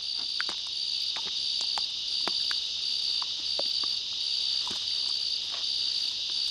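Steady high-pitched insect chorus chirping in regular pulses about twice a second, with faint scattered clicks and crunches from a coati chewing up a tarantula, shell and legs included.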